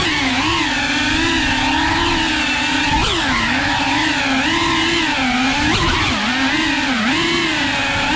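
FPV quadcopter's brushless motors whining, the pitch rising and falling with the throttle, with quick sharp throttle blips about 3 and 6 seconds in.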